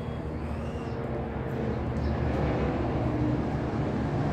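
Steady low mechanical rumble in the background, growing a little louder toward the end.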